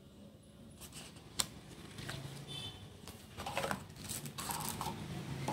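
Faint rustling, tapping and clicking of a paper booklet, a cardboard box and a sunglass case being handled and set down, with one sharper tick about a second and a half in.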